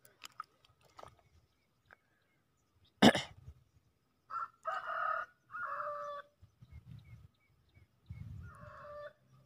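A rooster crowing twice: a longer crow broken into three parts about four seconds in, and a shorter one near the end. A single sharp knock about three seconds in is the loudest sound.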